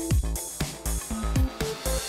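Intro theme music with a quick, regular beat of deep drum thumps that drop in pitch, under short melodic notes.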